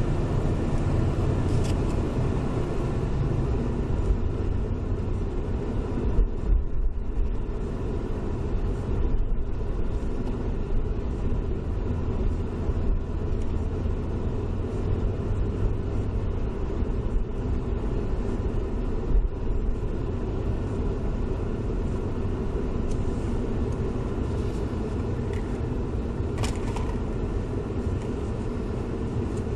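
Steady low rumble of a car driving on a wet road, with tyre and road noise, heard from inside the cabin through a dash cam's microphone.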